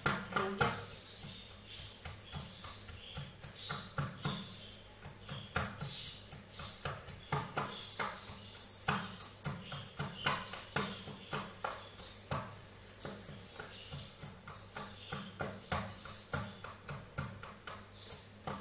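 Wooden pestle pounding and mashing roasted, peeled eggplant in a ceramic bowl: irregular knocks, a few a second.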